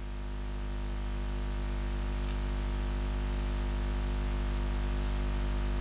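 Steady electrical mains hum, a low drone with a stack of evenly spaced overtones, under a constant hiss from the microphone and recording chain; it grows slightly louder over the first two seconds.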